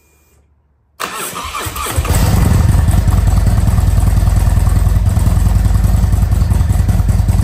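Harley-Davidson Road Glide's Milwaukee-Eight V-twin, bored to 114 cubic inches with a high-torque cam, cranks on the starter for about a second, then catches and runs loud with an even, pulsing idle until it is shut off at the very end. It is started in first gear with the new clutch lever held in, a check that the lever still works the clutch interlock switch.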